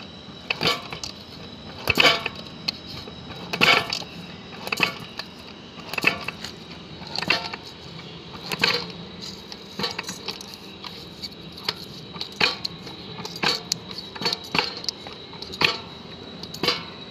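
Manual three-in-one sheet metal shear, brake and roll machine worked by its hand lever, shearing thin strips of sheet metal: a series of sharp metallic clanks with a short ring, roughly one a second, unevenly spaced.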